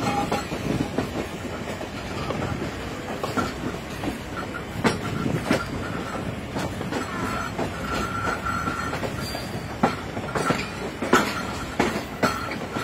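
Pakistan Railways passenger coach rolling over station points and rail joints, heard at an open coach window: a steady rumble broken by irregular wheel knocks. Near the middle a thin, high wheel squeal holds for about two seconds.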